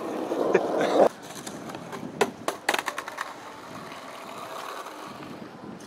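A brief burst of voice, then a quick run of sharp wooden clacks from skateboards over a steady hiss of rolling wheels on concrete.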